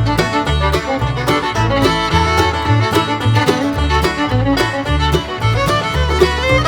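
Upbeat bluegrass-style background music with fiddle, banjo and guitar over a steady beat.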